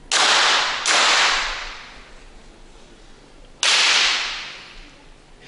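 Three .22 free-pistol shots on the firing line: two about three quarters of a second apart, then a third about three seconds later. Each cracks sharply and echoes on for about a second in the range.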